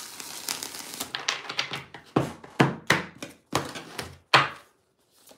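A deck of tarot cards being shuffled by hand: a run of short, irregular card slaps and rustles, about two or three a second, stopping shortly before the end.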